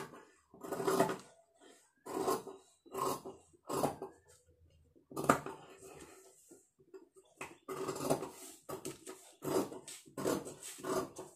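Large tailor's scissors cutting through blouse fabric along a paper pattern: a string of short, irregular snips with brief pauses between them.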